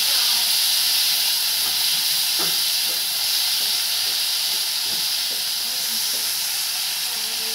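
Chopped onions and whole spices frying in hot oil in an aluminium kadhai, a steady sizzle, while a metal spatula stirs them with a few faint scrapes. The onions are at the stage of being fried until soft.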